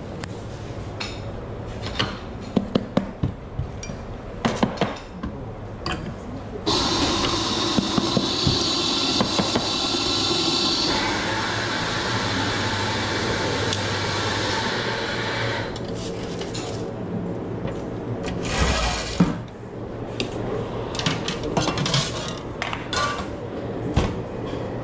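Cups and dishes clinking, then an espresso machine's steam wand hissing steadily for about nine seconds as milk is steamed, its sound shifting partway through. More clatter follows, with one louder knock.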